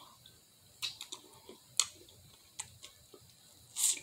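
Close mouth sounds of a person eating shrimp: a scatter of sharp wet clicks and lip smacks while chewing, with a louder smack near the end as fingers go to the mouth.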